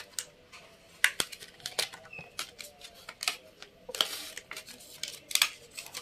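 Clear plastic packaging of a RAM stick clicking and crinkling as it is opened by hand. Scattered sharp clicks, with a short rustle about four seconds in.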